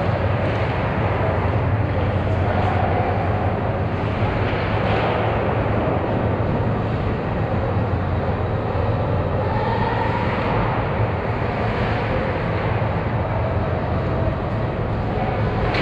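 Ice hockey rink ambience during play: a steady low hum and hiss with faint scrapes and clicks of skates and sticks on the ice.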